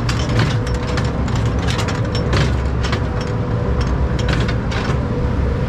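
Log flume ride carrying the log toward the final drop: a steady low mechanical rumble under rapid, irregular clacking and rattling.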